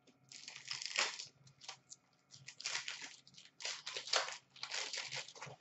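Crinkling and tearing of a foil trading-card pack wrapper being ripped open and handled, in a series of irregular crackling bursts.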